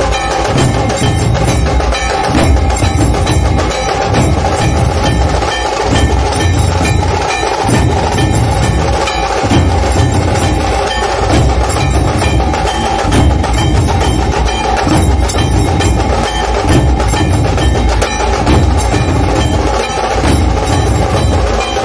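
Dhol tasha ensemble playing: big two-headed dhol drums beaten with sticks in a steady, driving rhythm, under the fast, dense strokes of the tasha drums, with a steady ringing tone held above them.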